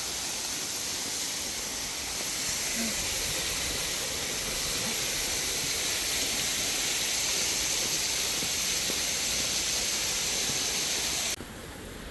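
Steady rushing hiss of a waterfall close by, with no pitch or rhythm. It cuts off abruptly near the end.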